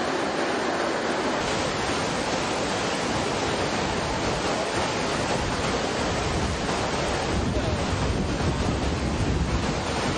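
A waterfall and swollen creek rushing: a steady noise with no distinct events. A low rumble grows stronger in the last few seconds.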